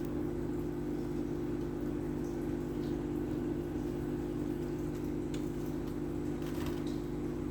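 A steady mechanical hum from a motor or appliance, with a few faint wet clicks and smacks near the end: a puppy licking and eating ice cream.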